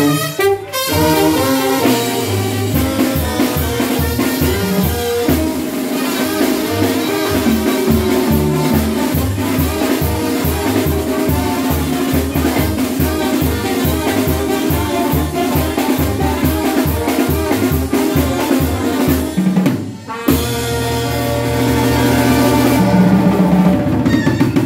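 Live Mexican banda music: tuba, trombones and trumpets playing over a fast, steady drum beat. About twenty seconds in the band stops for a moment, then comes back in with long held brass notes and a deep held tuba note.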